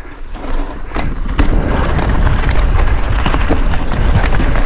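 Mountain bike rolling fast down a dirt and stone singletrack: tyres on loose ground, the bike rattling with a few sharp knocks, and heavy wind rumble on the bike-mounted microphone. It gets much louder about a second in as the bike picks up speed.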